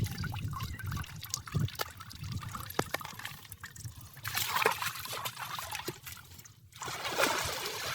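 Shallow water trickling and splashing, with many small irregular splashes, louder after about four seconds and dropping away briefly about six and a half seconds in.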